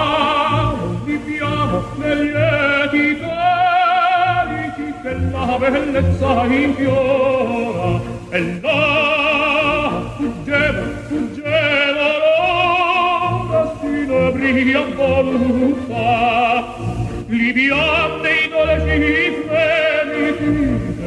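Music in operatic style: a lead voice sings long held notes with strong vibrato over accompaniment.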